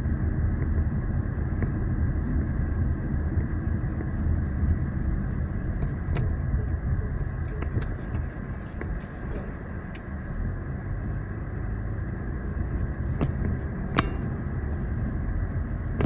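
Steady low rumble of a car driving along a road, engine and tyre noise heard from inside the cabin, with one sharp click near the end.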